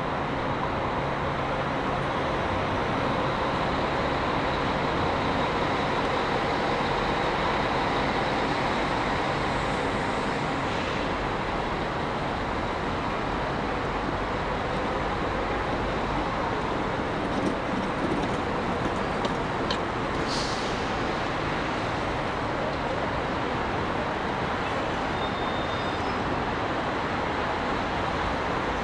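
Steady road-traffic noise from buses and cars on the roads below, a continuous mix of engine rumble and tyre hiss. A brief hiss sounds about two-thirds of the way through.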